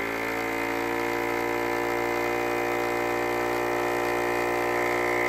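Ziploc vacuum sealer's electric pump motor running steadily with a whining hum, drawing the air out of a vacuum-seal bag.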